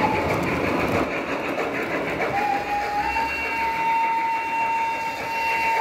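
Large-scale model train running along the track, with a steady whine that steps up and down between two pitches a few times over the rolling noise of the wheels.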